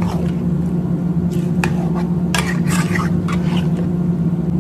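A flat metal utensil stirring and scraping raw meat chunks and spices in a metal pan, a few short scrapes and squishes, over a steady low hum.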